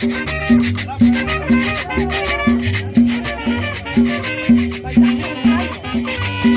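Salsa music playing with a steady dance beat, strong notes coming about twice a second.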